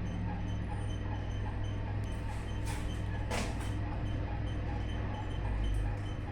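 Pillar freight elevator running: a steady low hum with faint ticks repeating about twice a second. Two brief rushing, scraping noises come a little after the middle, and the hum swells near the end.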